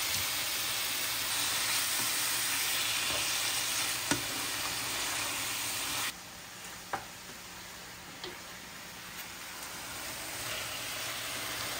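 Diced chicken breast frying in hot oil with chopped onion and garlic: a steady sizzle, stirred with a wooden spatula that knocks against the pan a few times. The sizzle is louder at first and drops suddenly about six seconds in, then goes on more quietly.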